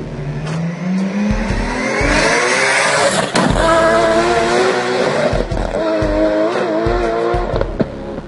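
Car engine revving, its pitch rising over the first few seconds, then a wavering squeal through the middle, with several abrupt cuts.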